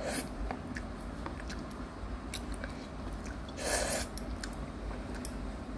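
A child slurping instant noodles: a short slurp right at the start and a longer, louder slurp about three and a half seconds in, with chewing and small clicks between.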